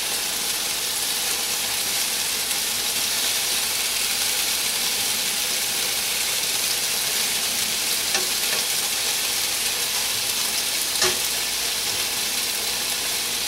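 Chicken wings in a soy sauce and brown sugar coating sizzling steadily in a pan without oil as they brown, with a couple of faint light knocks partway through.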